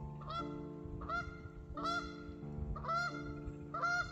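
Geese honking in a steady series, about six two-part honks roughly three-quarters of a second apart, over soft background music with held notes.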